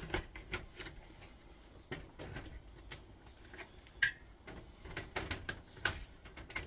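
Irregular clicks and light knocks of tools and parts being handled while circuit boards are freed from an induction hob's steel back plate, with a sharper click that rings briefly about four seconds in.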